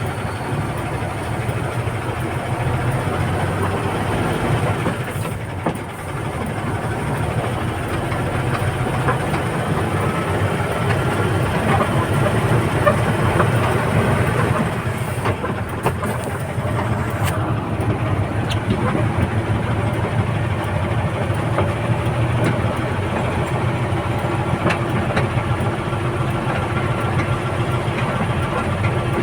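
A backhoe's diesel engine running steadily, with a few faint clicks over it.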